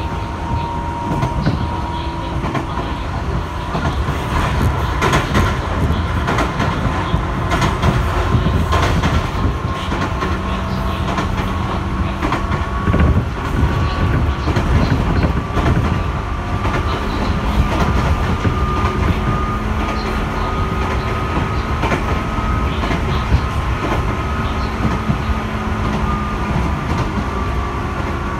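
Cabin noise of a 205-series electric commuter train running at speed: a steady low rumble of wheels on rail, with scattered knocks over rail joints and a thin whine that slowly rises in pitch.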